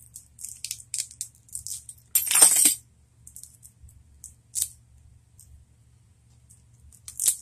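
Plastic game packaging rattling and clicking in quick, scattered ticks as it is worked open with a small hand tool, with a louder half-second rasp about two seconds in and another short one near the end.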